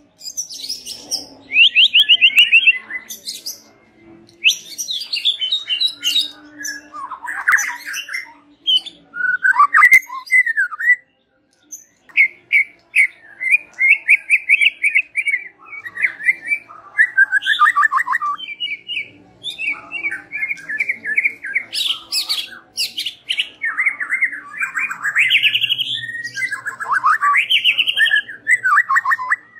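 White-rumped shama singing a loud, varied song of fast trills, rattling notes and whistled phrases, broken by short pauses and one longer pause about eleven seconds in.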